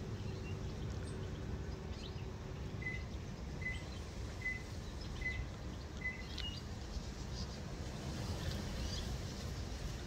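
Small bird calling in a garden: a run of five short, even notes about three-quarters of a second apart, with a few fainter chirps around them, over a steady low background rumble.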